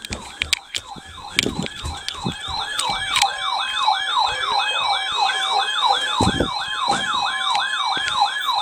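Siren-like alert alarm from a weather radio: a yelping tone sweeping up and down about three times a second, with a few clicks near the start. It signals an incoming emergency alert.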